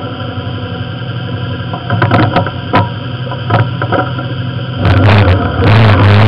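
A vehicle's engine running under way, a steady low drone that swells louder about five seconds in, with several clunks and rattles in the middle.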